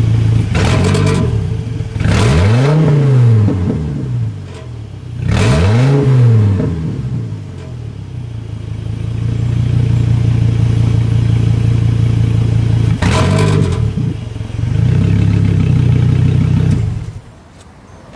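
Five-cylinder truck engine running through a muffler-bypassed exhaust: a loud idle, revved twice with the pitch climbing and falling back each time, plus a few short sharp cracks. It stops about seventeen seconds in.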